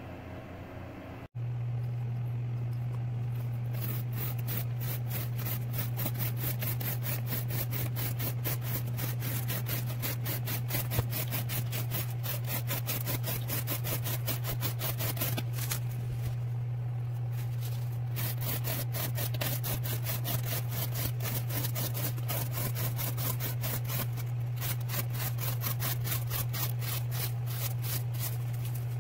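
Knife slicing through corrugated cardboard in rapid, repeated strokes over a steady low hum, starting about a second in, during an edge retention cutting test.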